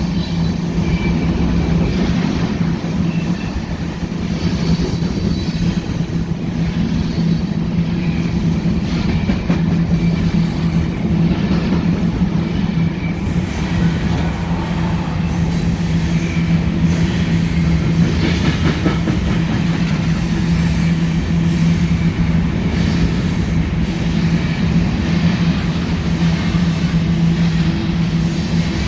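A long BNSF coal train's cars rolling past: a steady, loud rumble of steel wheels on the rails, with faint brief wheel squeals here and there.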